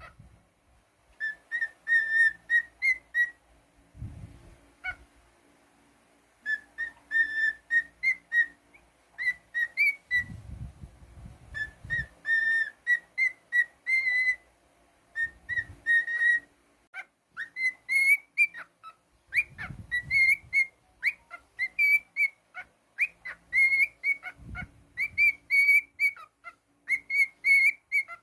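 Cockatiel whistling a tune in phrases of quick, short notes, with brief pauses between phrases and a long unbroken run in the second half.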